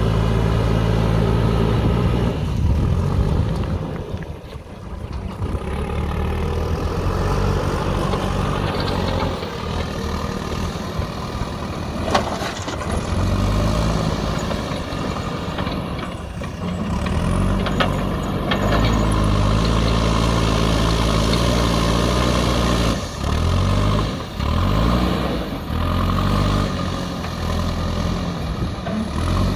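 JCB backhoe loader's diesel engine running, its revs rising and falling several times as the machine works. A sharp click sounds about twelve seconds in.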